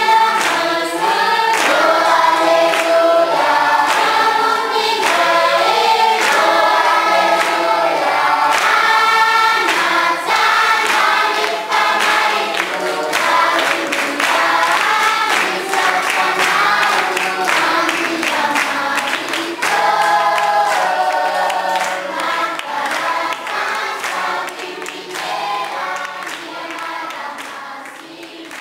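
A large group of children and adults singing a song together, led by a man's voice, with hand claps keeping the beat. The singing fades out near the end.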